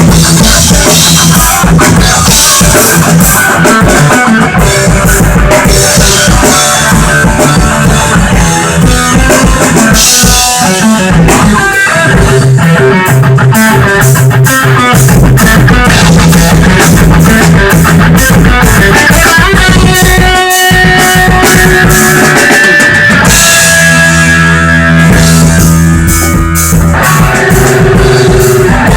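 Instrumental rock rehearsal of drum kit and guitar playing loudly, with no bass or vocals. The playing breaks briefly about twenty seconds in, then returns with held guitar chords.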